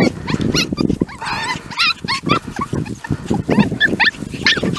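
Bichon frise puppies yipping and whining over and over in quick short high calls, with rustling underneath as they run through grass.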